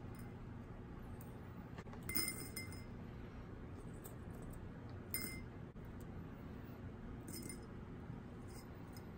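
Small glass bowl clinking as handfuls of plastic LEDs are dropped into it and the bowls are handled: a few separate sharp clinks, the loudest about two seconds in, then about three and five seconds in, with fainter ticks near the end.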